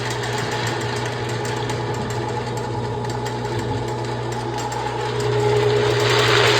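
Electric drain-cleaning cable machine running steadily with a motor hum as its cable spins in the toilet's drain line, the blockage believed just cleared. Near the end a louder hissing rush swells over it.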